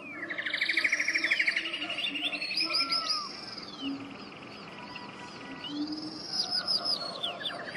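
Birdsong-like chirps, arching whistles and fast trills over faint steady low tones.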